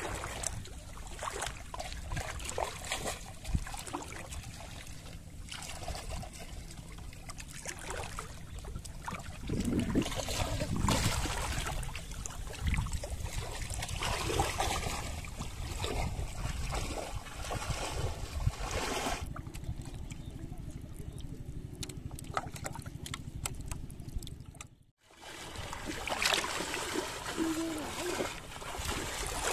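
Shallow pond water splashing and sloshing irregularly as people wade through it, over a steady rumble of wind on the microphone.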